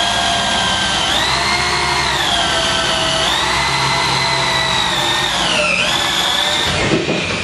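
Corded electric drill driving the hex input of a 5,000 lb Bulldog jack, lowering a snowmobile lift. The motor whine steps up and down in pitch several times, then stops about seven seconds in.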